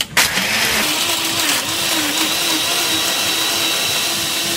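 Countertop blender switched on and running, crushing ice and strawberries. It starts abruptly with a steady motor whine, which wavers in pitch for the first couple of seconds and then settles.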